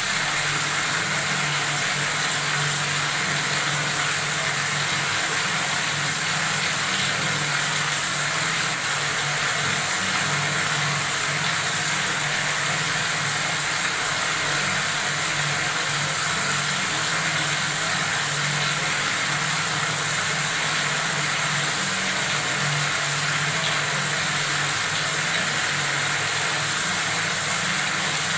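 Water running steadily from a faucet in a constant stream, a continuous splashing hiss with a low steady rumble beneath it.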